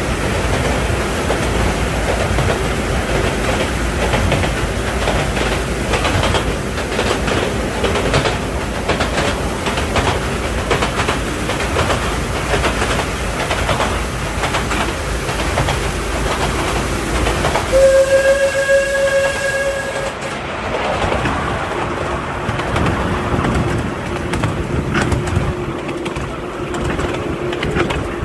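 Miniature steam train running through a tunnel, its wheels clicking and clattering on the track, with a steady whistle blast of about two seconds a little past the middle. Soon after the whistle the running noise turns quieter and less hissy as the train leaves the tunnel.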